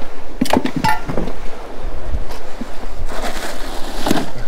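Wind rushing over the microphone, with a few sharp knocks and clatters about half a second to a second and a half in as a caught Spanish mackerel is handled over a plastic cooler.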